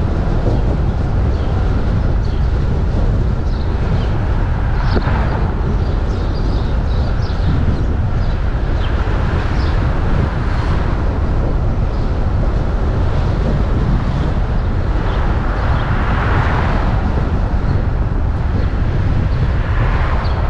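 Wind buffeting the microphone of a hood-mounted GoPro on a slowly moving Jeep, a steady low rumble mixed with the vehicle's road noise. The noise swells briefly about three times.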